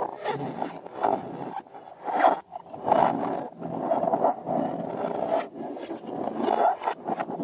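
Slime being squished and worked by hand, a continuous rough squelching and scraping with louder surges about two and three seconds in.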